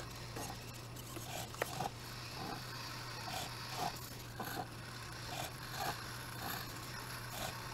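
Faint, small robot motors whirring and scraping in short repeated spurts, about two a second, as a hobby robot moves on the stage, with a single click about one and a half seconds in over a steady low hum.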